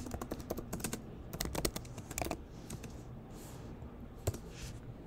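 Typing on a computer keyboard: a quick run of key clicks in the first two and a half seconds, then a few scattered keystrokes and one sharper click a little after four seconds.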